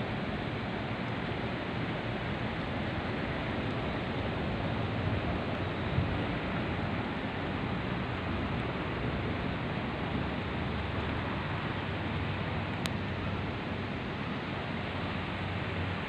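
Wind blowing steadily through trees and leafy foliage: a continuous rustling hiss.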